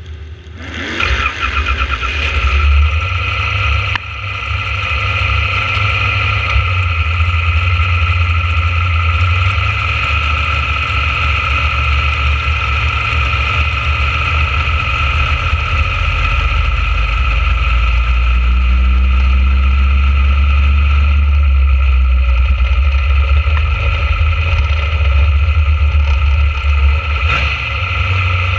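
Junior dragster's small engine catching about a second in, then running steadily at low speed with a low rumble and a steady high whine over it.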